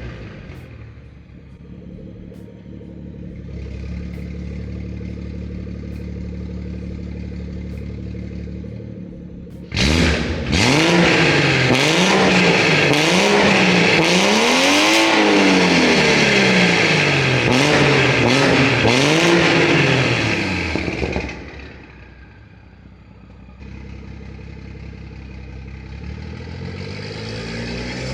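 BMW 340i's B58 turbocharged inline-six through a Valvetronic Designs axle-back exhaust with the resonators deleted. It runs low and steady at first. About ten seconds in it turns suddenly loud and revs up and down over and over for about ten seconds, then drops back low and climbs again near the end.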